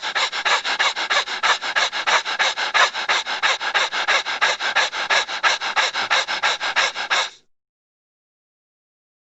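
Rapid rhythmic panting, about five or six breaths a second, that cuts off abruptly about seven seconds in.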